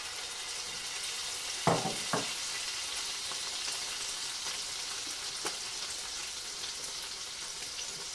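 Scallops with garlic and chili frying in a pan, a steady sizzling hiss just after lime juice has gone into the hot oil. Two knocks come about two seconds in.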